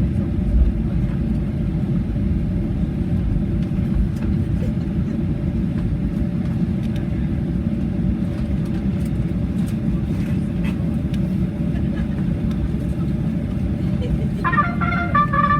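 Steady low rumble inside the cabin of a Boeing 737-800 rolling on the ground after landing, with a few faint clicks. Near the end a cabin PA announcement begins over it.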